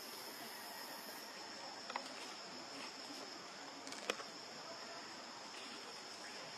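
A steady, high-pitched insect drone in the background, with a few short sharp clicks about two and four seconds in.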